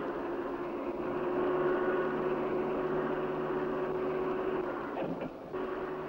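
Crane winch machinery running with a steady hum and a few held tones as it lowers a steel deck unit. The sound dips and shifts briefly about five seconds in.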